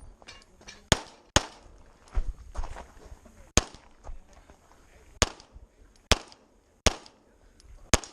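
Single pistol shots fired one at a time at uneven spacing, mostly a second or so apart, as an IPSC competitor engages targets on a stage after the shot timer's start beep.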